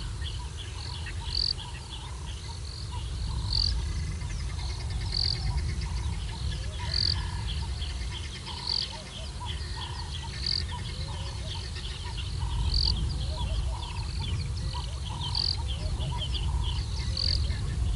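Dawn chorus of birds and insects around a bush waterhole: many short high chirps, with one high call repeating about every two seconds, over a low steady rumble.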